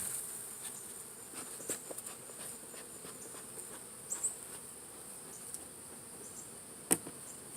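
Honey bees buzzing around an opened hive box with a steady high insect chirring, broken by a sharp knock right at the start and another about seven seconds in.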